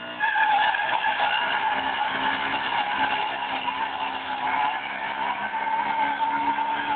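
250cc motorcycle doing a burnout: the rear tyre spins against the asphalt in a loud, steady squeal over the running engine, starting suddenly about a quarter second in.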